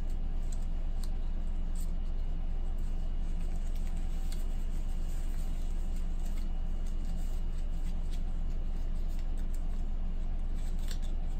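A steady low hum fills the background, with faint rustling and small clicks of cardboard hang tags being handled.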